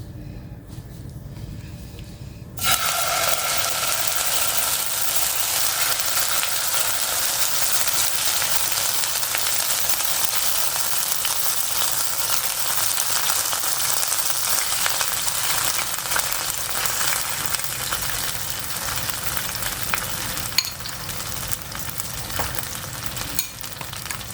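Food frying in a pan, a steady sizzle that starts abruptly about two and a half seconds in, with a few light clicks of stirring.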